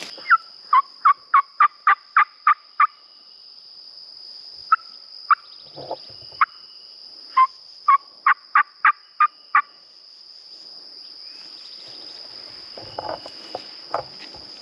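Two runs of loud, evenly spaced turkey yelps, about three a second: nine in the first three seconds, then another run from about five to ten seconds in. A steady high-pitched hum sits underneath, and faint rustling through brush comes near the end.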